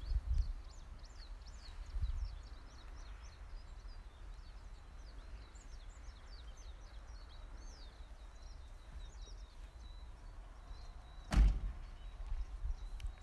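Small birds chirping in quick, high twittering notes over a low wind rumble on the microphone. About eleven seconds in, one sharp bang.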